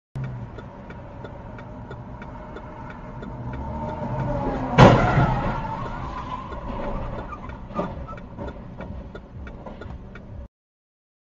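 A loud impact about five seconds in, heard from inside a car as a semi-trailer truck sweeps close across its front: the truck's rumble grows louder before the hit, and a smaller knock follows about three seconds later. A fast, regular ticking runs underneath, and the sound cuts off suddenly near the end.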